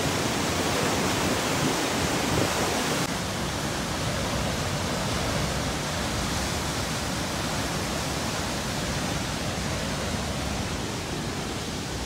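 A large waterfall and fast whitewater rapids rushing, a steady dense noise of churning water. About three seconds in, it becomes a little quieter and duller.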